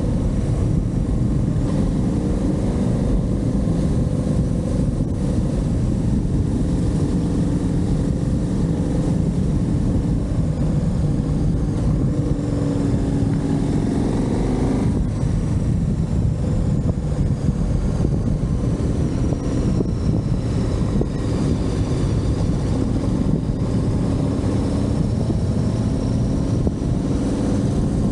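Motorcycle engine running on the move, its pitch rising and falling with speed, with an abrupt shift about halfway that sounds like a gear change, over a steady rush of wind.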